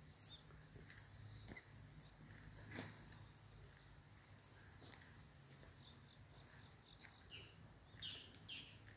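Faint outdoor ambience: an insect's steady high-pitched trill runs throughout, and a few short falling bird chirps come near the end.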